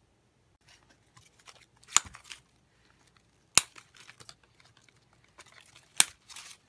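Artificial plant stems with stiff fabric leaves being handled, a faint rustling, with three sharp clicks about two, three and a half, and six seconds in.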